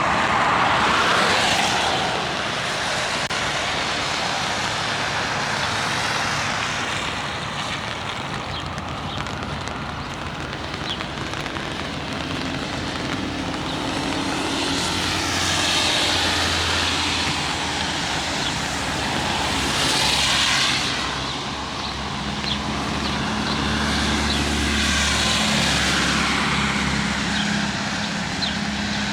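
Traffic passing on a wet road in the rain, each vehicle's tyre hiss swelling and fading several times, with rain spattering steadily close by. A low engine hum runs under the second half.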